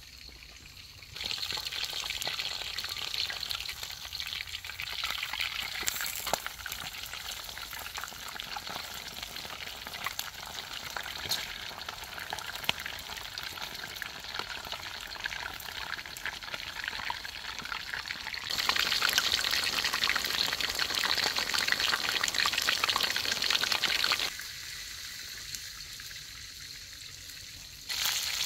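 Food sizzling as it fries, a steady crackling hiss. It grows louder for several seconds after the middle, then drops back.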